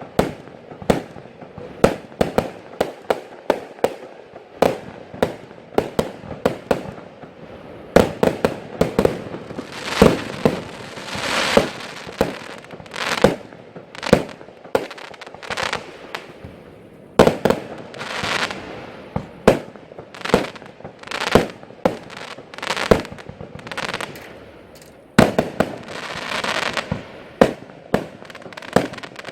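Category F2 consumer fireworks, shot batteries, firing a fast run of sharp reports and bursts, several a second. A few longer stretches of crackle and hiss are mixed in.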